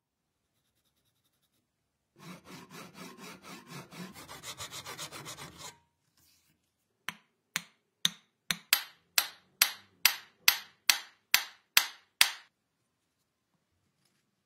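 A wooden hammer handle being worked by hand with an abrasive tool. First comes a fast run of rubbing strokes for a few seconds, then, after a short pause, about fourteen louder, sharper strokes that speed up.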